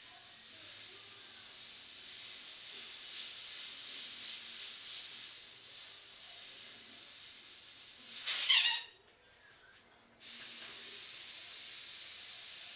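Airbrush spraying paint onto a T-shirt: a steady high hiss of air that swells and eases. About eight seconds in comes a brief, much louder burst. The spray then stops for about a second and resumes at an even level.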